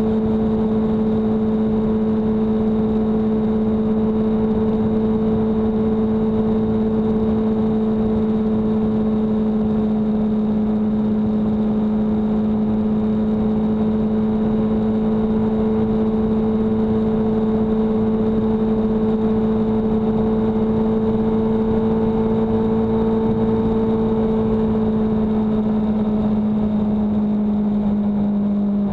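Vehicle engine and road noise while cruising at about 74 mph on a motorway: a steady drone that drops slightly in pitch near the end as the vehicle slows.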